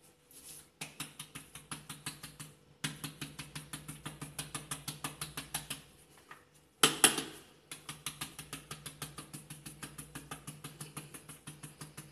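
Spice jar clicking rhythmically, about six sharp clicks a second in runs of a few seconds, as sweet paprika powder is worked out of it onto minced chicken; one louder knock about seven seconds in.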